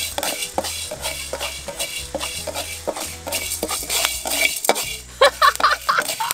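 Wooden spatula scraping and stirring husk-on rice grains around a dry steel wok, a quick run of rattling clicks as the grains are pushed over the metal. Background music with a steady bass plays underneath.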